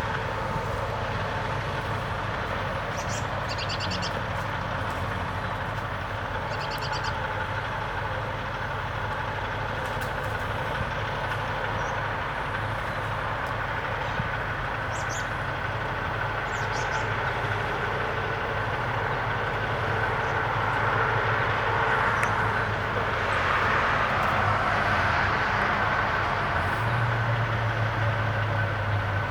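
A vehicle engine runs steadily amid a traffic hum that swells for a few seconds in the second half. Short high bird chirps come through a few times in the first half.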